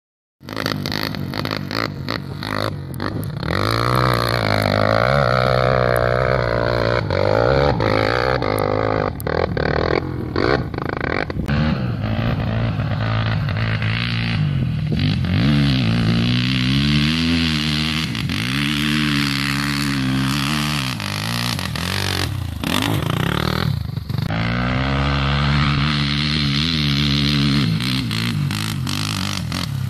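Dirt bike engine revving, its pitch rising and falling over and over as the rider works the throttle across loose dirt, with a long drop in revs early on.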